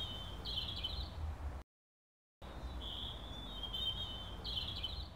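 Birdsong ambience: a small bird singing high, quick notes over a low outdoor rumble. It cuts to dead silence about a second and a half in, then the same stretch of birdsong starts again and runs on.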